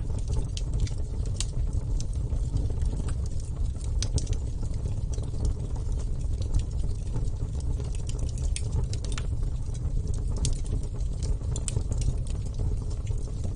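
Wood fire burning: irregular sharp crackles and pops over a steady low rush of the flames.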